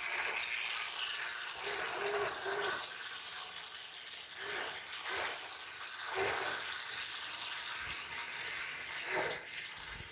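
Cardboard RC tow truck driving: its small electric motor whirring, with a rattle from the gears and the cardboard body, swelling and fading several times as it moves.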